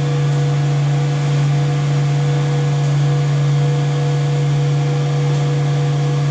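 Irrigation pump running with a loud, steady hum that does not change.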